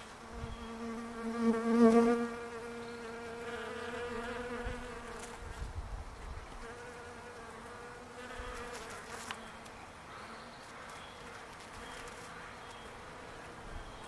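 Bees buzzing in a flowering palo verde tree. The buzz is loudest about two seconds in, then settles to a fainter steady hum.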